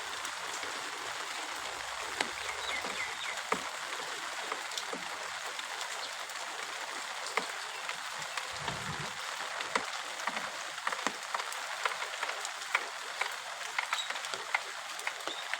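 Steady rain falling, with sharp drops ticking close by, more often in the second half. A few faint bird chirps come through the rain.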